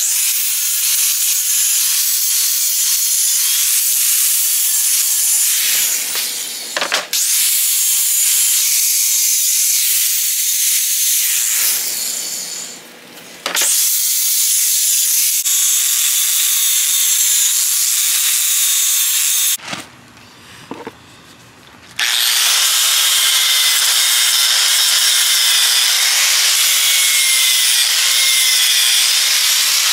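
Makita angle grinder running at a steady pitch, its disc grinding steel staples flush off stacked MDF templates. It drops out briefly about six and twelve seconds in, goes quiet for about two seconds around twenty seconds in, then runs on steadily.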